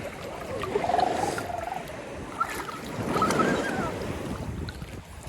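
High-pitched voices calling out, with the wash of seawater and waves around the swimmers underneath.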